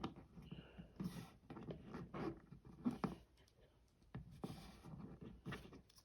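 Faint, irregular rustling, scraping and small clicks of hands handling a plastic-packaged action figure.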